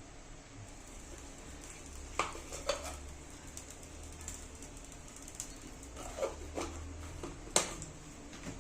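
Kitchen utensils and dishes clinking and knocking, with a handful of sharp separate clinks, the loudest late on, over a faint low hum.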